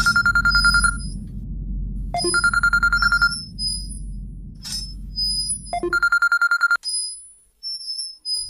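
Mobile phone ringing with a fast trilling ring, three rings of about a second each with pauses between. A low droning background score underneath cuts out about two-thirds of the way in.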